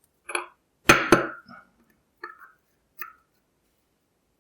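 A few short metal clicks and clinks, about five in all, the loudest a quick double clink about a second in: tweezers and small pin-tumbler lock pins being handled while a padlock is taken apart.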